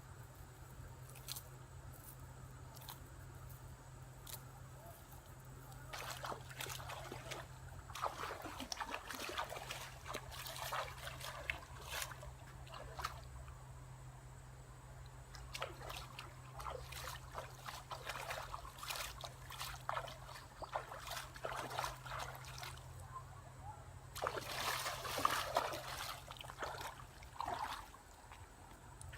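Shallow water sloshing and trickling in irregular bursts, with quieter stretches between, the busiest and loudest spell near the end.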